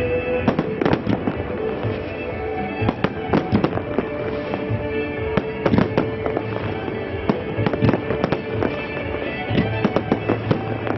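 Fireworks display: aerial shells and firework fountains going off in a dense, irregular run of sharp bangs and crackles, with music playing underneath.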